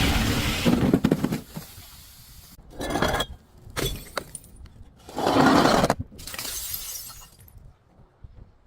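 Glass shattering: a sudden loud break at the start, then a few shorter bursts of glass crunching and breaking.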